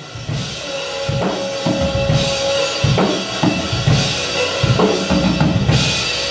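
Rock band playing together: a drum kit with bass drum, snare and cymbals under electric guitars and bass, with a held note in the middle.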